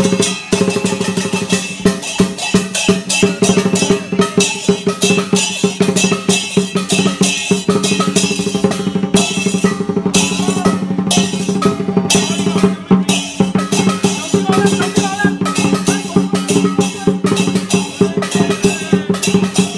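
Traditional Chinese dragon dance percussion: a large drum beaten fast with clashing cymbals, a dense, driving rhythm that keeps going without a break.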